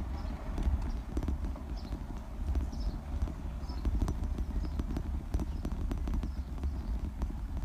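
Bicycle rolling over brick paving, with a steady low rumble and many irregular sharp clicks and rattles as the tyres cross the pavers.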